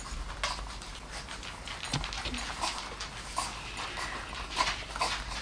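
Dachshund puppies lapping and smacking at blended veal mush in porcelain cups: a quick, irregular run of short wet clicks and slurps.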